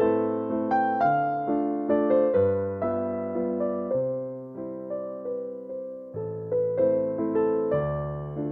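Background music played on a piano, a slow melody over struck chords and a bass line, each note decaying after it is struck.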